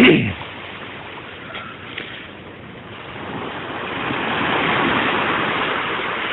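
Beach surf washing up the sand: a lull, then a wave swells in and rushes up the shore, loudest about five seconds in.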